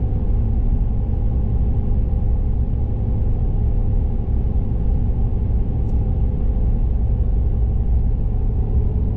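Steady road noise inside the cab of a moving vehicle: the low rumble of engine and tyres on the road at a constant cruising speed.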